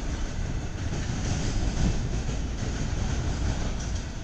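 Freight train rolling past, a steady rumble of wheels on the rails.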